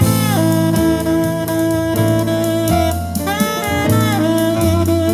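Instrumental jazz with a saxophone lead, bass and drum kit, played back through a pair of Dual CL270 three-way loudspeakers.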